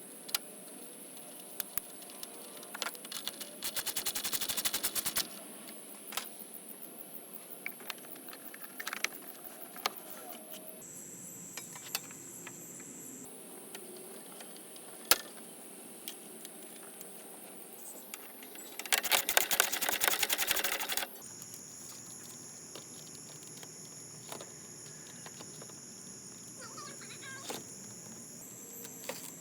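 Hand tools at work: scattered clicks and taps, with two spells of rapid clicking about two seconds each, one about four seconds in and a louder one about two-thirds of the way through. A faint steady high whine runs underneath.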